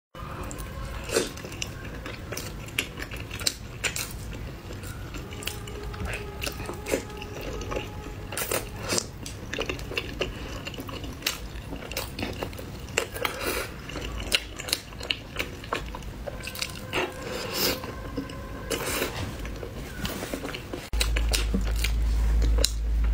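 Close-miked eating sounds: biting and chewing pieces of spicy pork in chili oil, with many sharp mouth clicks. A loud low rumble comes in near the end.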